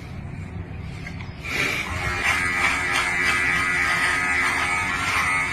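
A faint low hum, then a steady buzzing sound starting about a second and a half in and holding on.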